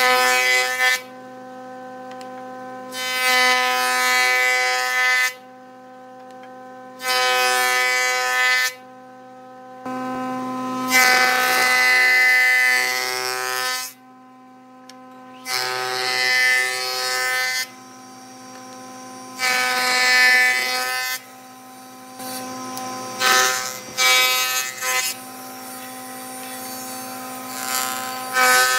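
Wood lathe running with a steady motor hum while a turning tool cuts the spinning wood in repeated passes. The cuts come in about eight stretches of one to four seconds each, with quieter pauses between them.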